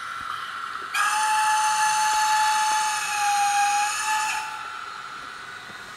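Steam whistle from the sound decoder of a Roco HO-scale Bavarian S3/6 model locomotive: one long, steady blast that starts suddenly about a second in and fades out after about three and a half seconds, over a steady hiss of steam.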